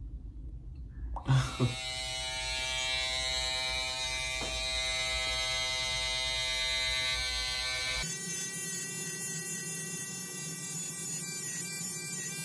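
Handheld electric trimmer buzzing steadily as it trims a mustache, starting after a couple of handling thumps about a second in. Its sound changes abruptly about two-thirds of the way through.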